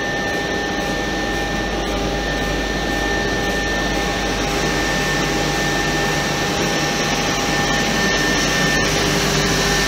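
JAZARI CNC PUR edgebanding machine running, a steady rushing noise with two high whining tones held throughout.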